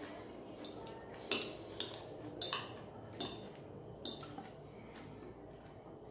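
Metal fork and spoon clinking and scraping against a plate while eating, a handful of sharp clinks at irregular intervals.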